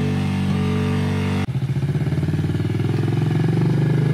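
Engine running steadily at idle; about one and a half seconds in it cuts suddenly to a louder, rougher engine sound with a fast, uneven pulsing.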